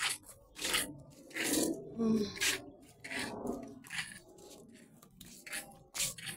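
Sandalled footsteps scuffing along a concrete path, a short scrape roughly every second.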